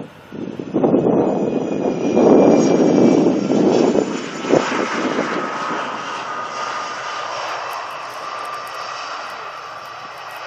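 Jet airliner passing on landing approach. The engine rumble is loudest in the first few seconds, then fades away while a high jet whine lingers and slowly drops in pitch.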